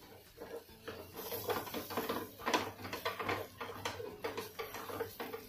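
Silicone spatula stirring and scraping thick, oily ground chana dal paste in a non-stick pan, an irregular run of soft scrapes and taps, several a second, while the dal is roasted in oil for halwa.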